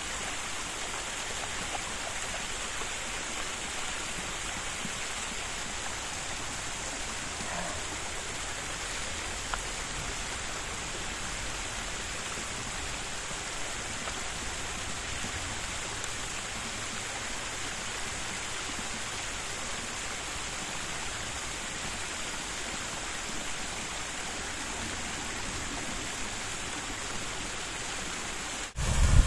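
A small mountain brook flowing, a steady rush of water. Right at the end it cuts off suddenly into a louder low rumble.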